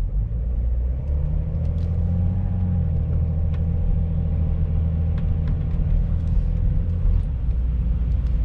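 Steady low road and engine rumble heard inside a BMW X5's cabin while driving, with a faint steady engine hum that rises slightly about two seconds in.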